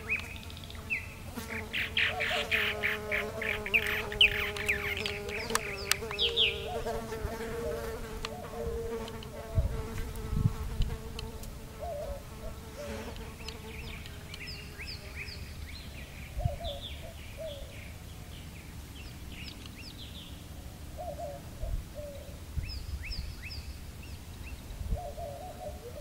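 An insect buzzing close by, a steady hum that fades out about halfway through. Short chirping and gurgling calls of purple martins continue throughout, with a few low thumps.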